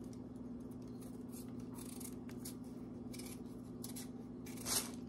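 Kitchen knife paring the skin off a raw potato: faint, irregular scraping strokes of the blade, with one louder rasp near the end. A steady low hum sits underneath.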